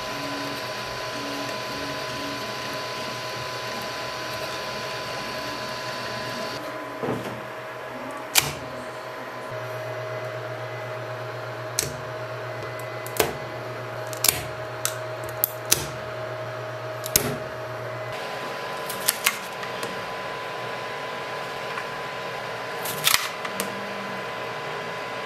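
FDM 3D printer running, its fans giving a steady whirring hiss with a steady hum of tones. Sharp plastic clicks come a dozen or so times as printed parts are handled and picked off the print bed.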